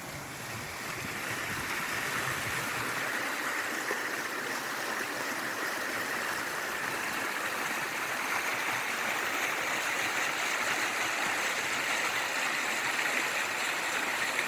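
Fast-moving stream water running steadily, a constant even rush that grows a little louder in the first couple of seconds.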